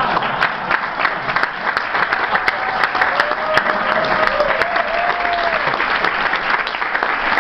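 Audience applauding steadily, with a few voices cheering in the middle.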